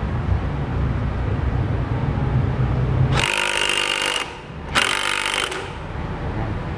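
Cordless impact wrench hammering in two bursts, about a second and then a little under a second, with a short pause between, as it runs down the nut on a Yamaha NMAX 155's front CVT drive pulley (variator). A low steady rumble comes before it.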